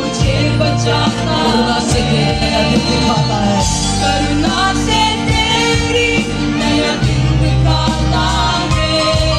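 Live worship band playing a Hindi worship song: several voices singing together over strummed acoustic guitar, electric guitar, a drum kit and keyboard, with a steady beat.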